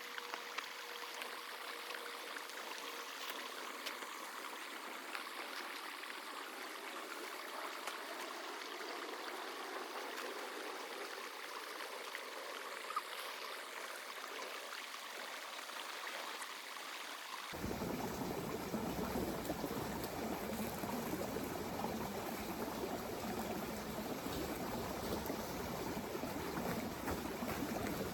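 Steady rush of running water. About two-thirds of the way through it cuts abruptly to a fuller, deeper rush.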